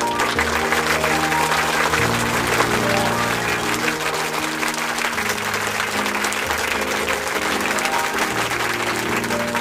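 Audience applause over backing music of slow, held chords.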